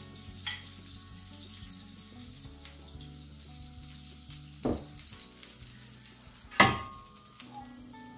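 Oil sizzling lightly in a ridged grill pan heating on a gas hob. Three metallic knocks come as the pan is handled, the loudest about two-thirds of the way in with a short ring.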